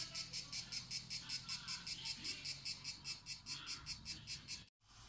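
Insect-like chirping: an even train of high-pitched pulses, about four to five a second, that stops abruptly near the end.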